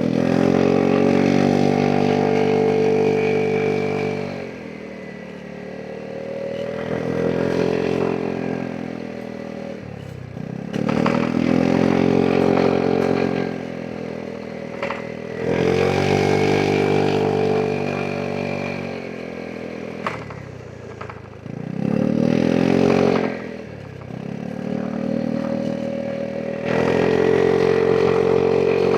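Vespa GTS 300 scooter's single-cylinder four-stroke engine under repeated throttle. It pulls hard at a near-steady pitch for a few seconds at a time, then eases back to a quieter run between, several times over.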